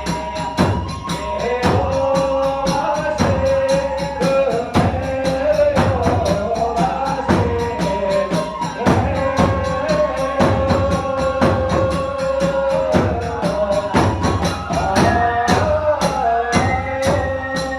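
Kagura hayashi music: drum and tebyoshi hand cymbals striking a fast, even beat under a held melody line.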